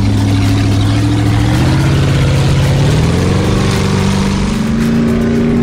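Powerboat engine accelerating, its pitch climbing steadily as it gathers speed.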